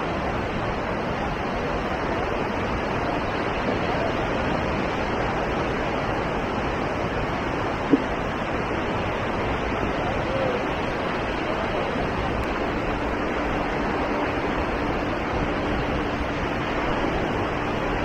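Steady rushing of surf washing onto a sandy beach. A single sharp click about eight seconds in, and a faint steady hum joins about two-thirds of the way through.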